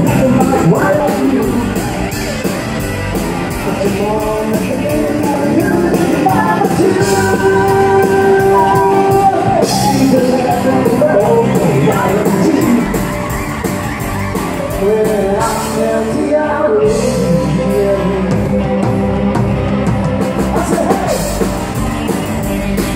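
Live country band playing, with a man singing lead into a handheld microphone over a steady drum beat.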